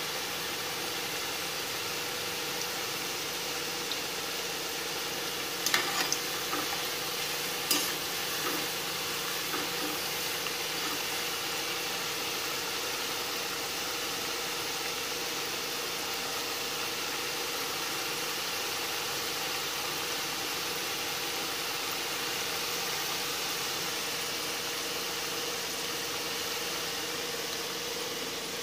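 Potato French fries deep-frying in hot oil in a kadai, a steady sizzle and bubble as they turn lightly golden, with a steady hum underneath. A few sharp clicks come about six and eight seconds in.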